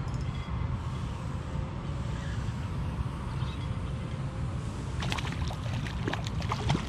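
A hooked barracuda thrashing at the surface, with a run of sharp splashes and clicks starting about five seconds in, over a steady low rumble.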